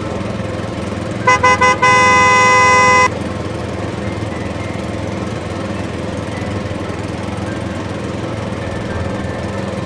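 A small motor runs steadily throughout, most likely the mini thresher's. A little over a second in, a horn toots three quick times and then sounds once more, held for about a second.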